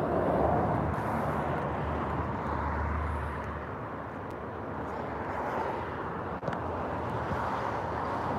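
Steady outdoor background rumble and hiss, with a faint click about six and a half seconds in.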